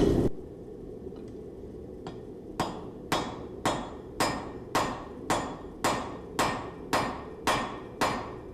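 Hand hammer forging a Damascus steel knife blank on an anvil: a steady run of about eleven ringing blows, roughly two a second, starting a couple of seconds in, over a low steady hum.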